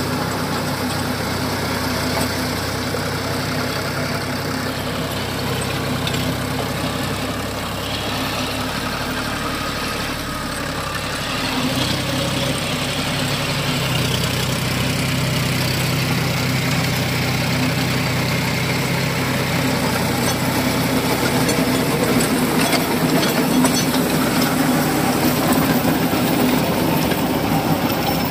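John Deere tractor's diesel engine running steadily under load while driving a Greensystem rotavator, its tines churning through dry soil. The engine note shifts and grows a little louder about twelve seconds in.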